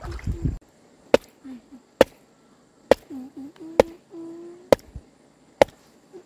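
Sharp, single blows repeated steadily about once a second, like chopping or hammering by hand, with brief low humming sounds between them.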